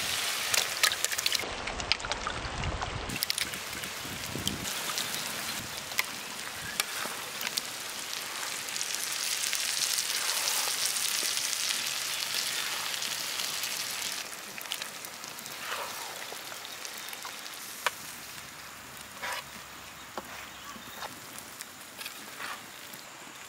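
Raw eggs frying in hot oil in a large pan of squid and prawns, a steady sizzle that swells in the middle and fades toward the end. A few short scrapes or knocks of a spatula come in the later part.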